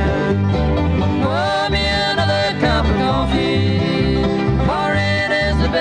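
Bluegrass band playing, with mandolin and acoustic guitar over a bass line that steps evenly between low notes.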